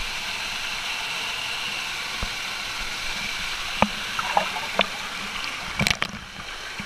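Waterfall pouring into a plunge pool, a steady rush of water close to the camera. In the second half, a few sharp splashes and knocks from water and drops hitting the camera break through the rush.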